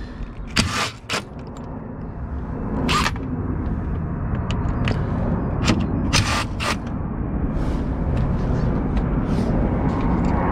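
Cordless drill with a long extension bit running as it undoes screws in the plastic bumper trim: a steady low motor noise, broken by a few sharp clicks of the bit on the screws.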